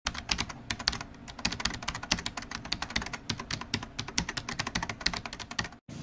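Computer keyboard typing sound effect: rapid, uneven key clicks, several a second, that stop abruptly just before the end.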